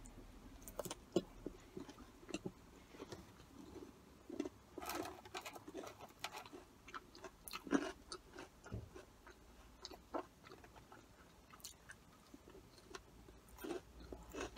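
A person chewing crispy curly fries in soft, irregular crunches and mouth clicks.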